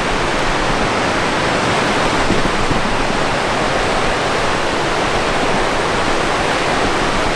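Whitewater of Bloody Falls, the rapids on the Coppermine River, rushing loudly and steadily.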